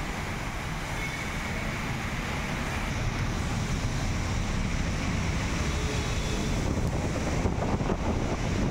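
Heavy rain pouring onto a flooded road, a steady hiss, with vehicles driving through the standing water.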